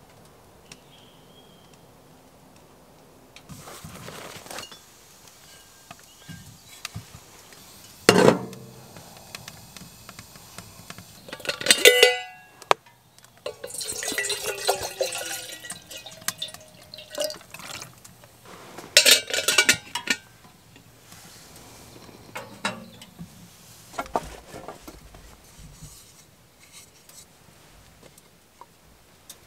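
Metal camp cookware clanking several times, and water poured from a plastic bottle into a stainless steel kettle for a couple of seconds, its pitch rising as the kettle fills.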